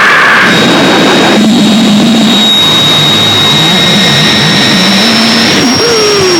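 Harsh noise music from a 1998 cassette: a loud, dense wall of distorted noise with a thin steady high whine over it. About a second and a half in, a wavering low drone joins; near the end the whine jumps higher and a couple of tones glide downward.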